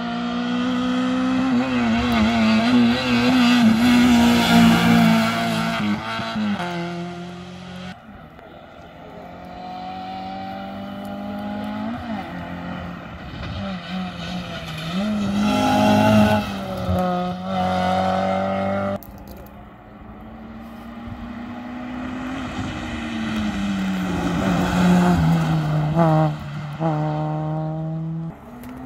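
Rally car engine at full throttle, its note climbing and then dropping sharply again and again at gear changes, growing louder as the car approaches. The sound breaks off abruptly twice.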